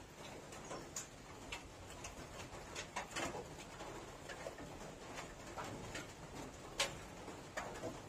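Close-up eating sounds: chewing and lip-smacking with irregular wet clicks, and fingers mixing rice on a steel plate, with one sharper click about two-thirds of the way through.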